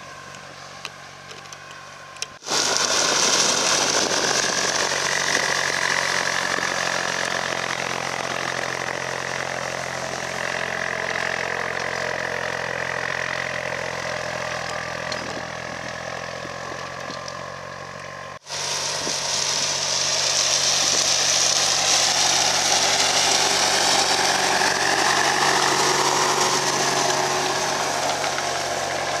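A 100 hp Fendt tractor runs under load while pulling a 2-metre Dyna Drive cultivator through soil and a rye cover crop: a steady engine note under a broad rushing noise from the implement. The sound is quieter for the first couple of seconds, jumps sharply in loudness at about two and a half seconds, and breaks off for an instant near eighteen seconds before going on as before.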